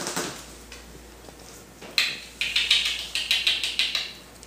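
Corgi puppies making a quick run of light clicks and taps, about five or six a second, starting about two seconds in.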